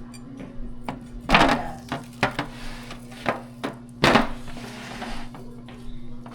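Kitchen work knocking and clattering: a string of sharp knocks, the two loudest about a second in and about four seconds in, over a steady low hum.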